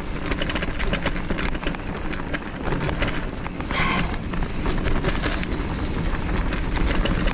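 E-mountain bike riding over a rough, muddy trail: tyres rolling, frame and parts rattling with many small knocks, and wind rushing over the camera microphone. A brief higher-pitched sound about four seconds in.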